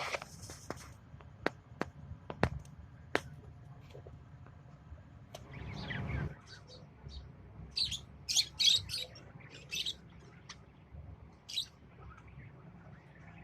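Lovebirds giving short, shrill chirps, loudest in a quick cluster about eight seconds in. Sharp clicks and taps come earlier, with a brief rustle in the middle.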